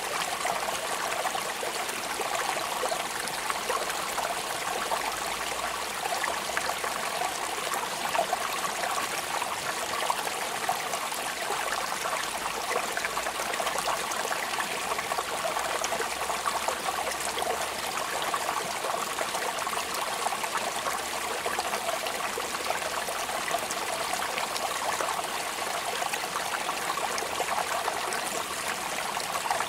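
Steady rain falling: a dense, even patter of countless drops with no change in strength.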